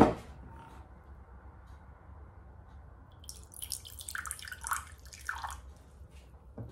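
A short knock at the very start, then water poured from a jug into a small glass, trickling and splashing for about two seconds from a little past the three-second mark.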